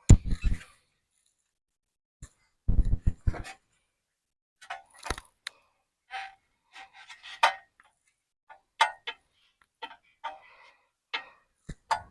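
Scattered metallic clinks and knocks of hand tools against a motorcycle's slip-on exhaust and its fittings. The stock exhaust is being worked loose, with a cluster of heavier knocks about three seconds in.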